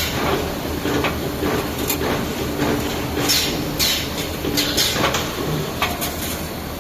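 XLC 2D CNC flat-bar welding machine at work: a steady machine hum broken by short, sharp hisses and clacks at irregular intervals, about one every half second to second.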